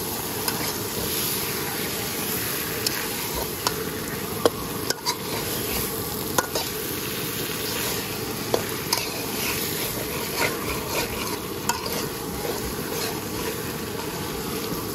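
Kain magur fish head frying in oil and spice paste in a wok, sizzling steadily as a spatula stirs and turns it, with scattered sharp clicks of the spatula against the pan. This is the kosha stage, the head being fried down in its masala.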